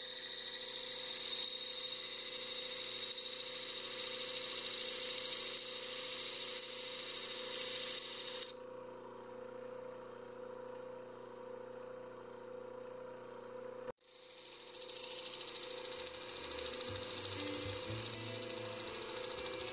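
Disc sander running, its abrasive disc hissing as a small wooden star is pressed against it. The hiss drops about eight seconds in, the sound cuts out briefly a few seconds later, and the sanding picks up again.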